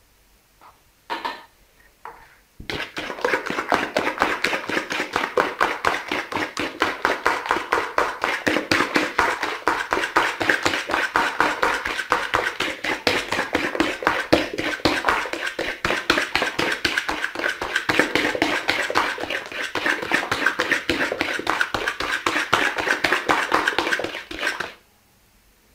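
Metal fork beating a liquid egg, sugar and oil mixture in a plastic bowl: a few taps, then about twenty seconds of fast, steady clicking and tapping of the fork against the bowl, stopping abruptly near the end.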